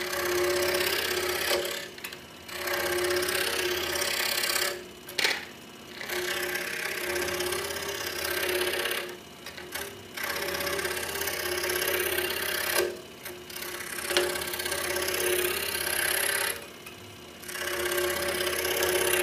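Pégas 21-inch scroll saw running, its reciprocating blade cutting small pieces off a thin wooden board. The cutting comes in about six short cuts, each a couple of seconds long, with brief dips between them.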